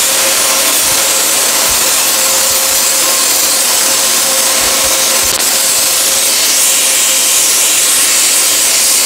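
Gravity-feed paint spray gun hissing steadily as it sprays paint, with a faint steady tone under the hiss.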